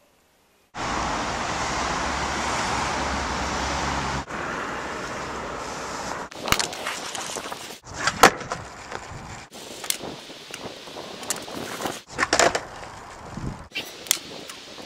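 Skateboard flatground tricks on asphalt. A steady rushing noise fills the first few seconds, then come sharp clacks of the tail popping and the board landing on the tarmac, several times, with the wheels rolling between them.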